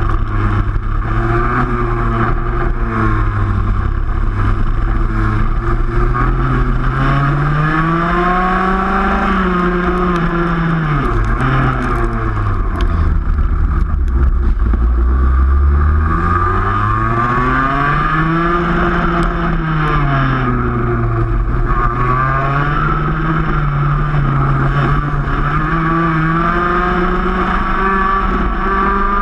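Racing kart's two-stroke engine running hard, its pitch climbing and dropping repeatedly as the kart speeds up and slows, with the engines of other karts in the pack close around it.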